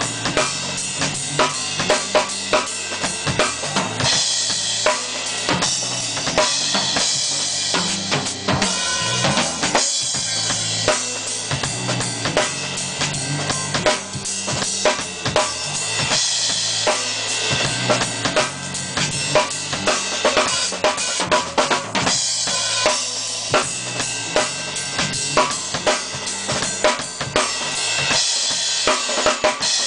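Acoustic drum kit played hard and fast in gospel-drummer style: rapid snare and tom strokes, bass-drum kicks and cymbal crashes with no pause, with stretches of ringing cymbal wash.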